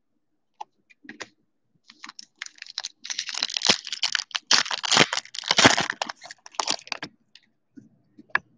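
Foil wrapper of a trading-card pack being torn open and crinkled in the hands, a dense crackling that lasts about five seconds, then a few light clicks near the end as the cards are handled.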